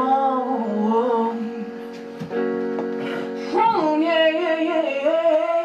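A woman singing into a microphone while accompanying herself with held chords on an electronic keyboard.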